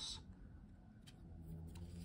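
Faint handling of tarot cards: a few soft clicks over a low, steady room hum.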